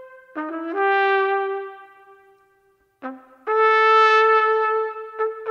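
Solo brass horn playing a slow, mournful-paced melody: short low pickup notes rising into long held notes, with a pause of about a second midway.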